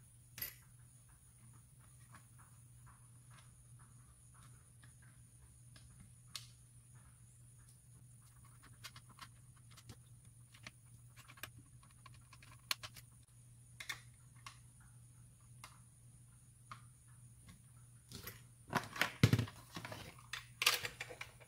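Small scattered clicks and taps of screws, tools and parts being handled on a workbench, with a louder burst of plastic knocking and rattling near the end as the RC buggy's plastic chassis is gripped and moved. A steady low hum runs underneath.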